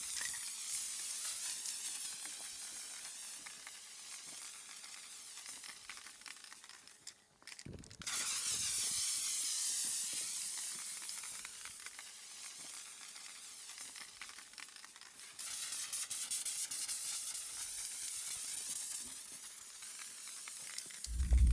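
Aerosol spray paint cans hissing steadily as paint is sprayed, cutting out briefly about seven seconds in and then starting again. A loud low thud just before the end.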